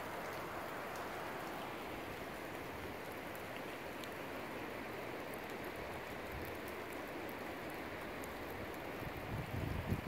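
Steady hiss of a windy rainstorm as a squall line passes, with low gusts beginning to buffet the microphone near the end.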